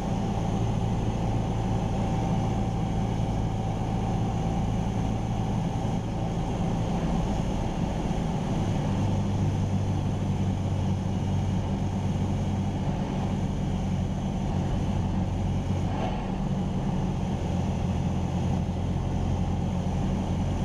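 Cessna 172R Skyhawk's four-cylinder Lycoming piston engine and propeller droning steadily in flight, heard from inside the cockpit.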